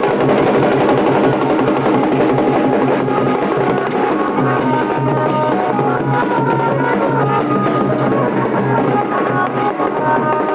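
Nashik-style dhol band playing: dhol drums beaten in a dense, continuous rhythm, with a melody of held high notes over the drumming.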